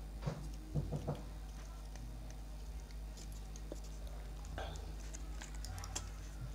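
Scattered small clicks and taps from a smartphone's plastic frame being handled and turned over in the hands, over a steady low hum.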